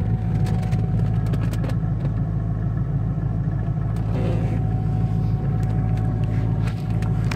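C5 Corvette Z06's LS6 V8 running, heard inside the cabin: a steady low rumble with a constant thin whine above it, the whining noise the owner is hearing from the car, plus a few light clicks.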